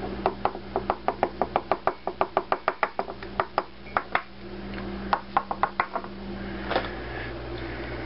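Quick light taps on a small ceramic ramekin, about five a second for about four seconds, then a few more near the end, as ground coffee is knocked out of it onto a wooden board.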